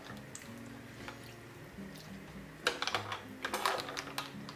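Close-miked wet mouth sounds of someone eating seafood stew: clusters of clicky chewing and smacking about two and a half and three and a half seconds in, over soft background music.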